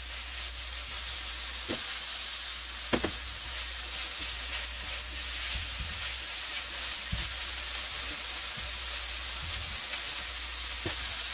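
Leftover Chinese noodles frying and sizzling steadily in a hot Ninja NeverStick non-stick fry pan, with a few light clicks as they are stirred.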